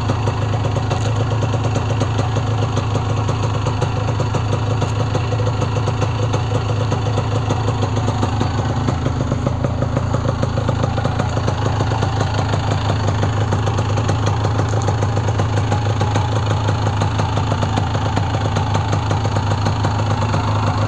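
Honda NSR two-stroke motorcycle engine idling steadily, a fast even beat that holds the same pace throughout.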